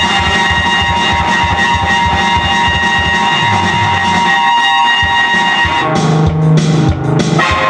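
Rock-style instrumental music played on an electronic keyboard: sustained tones over a steady beat, changing to a new chord about six seconds in.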